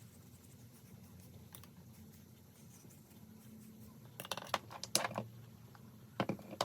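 Small hard objects clicking and clattering on a tabletop as craft supplies are handled, in two short bursts: one about four seconds in and another just after six seconds.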